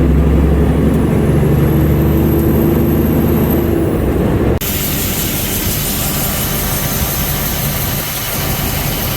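Truck engine running steadily while driving, with a faint high whine that rises and then fades; about halfway through the sound switches abruptly to a hissier, more even driving noise.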